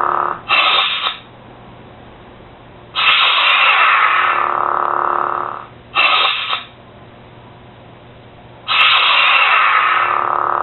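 DIY lightsaber's sound board playing its saber sound effects through the hilt speaker: a sound of about three seconds that starts suddenly and fades, a short half-second burst, then the cycle again near the end, over a faint steady low hum.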